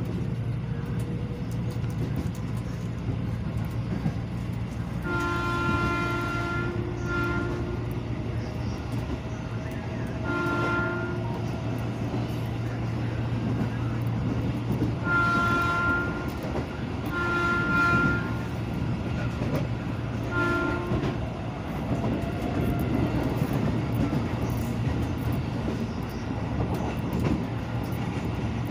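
Commuter electric train running, with a steady rumble and hum. Its horn sounds in several short blasts a few seconds apart.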